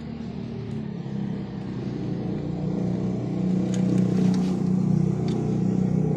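An engine running, a low rumble that grows louder over the first few seconds and then holds steady, with a few faint clicks near the end.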